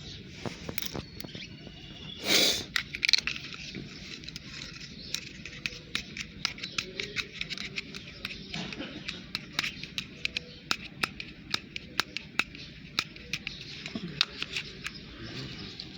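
Toy animals being handled and set down, giving many light clicks and knocks over a steady background hiss, with one louder scraping rustle a little over two seconds in.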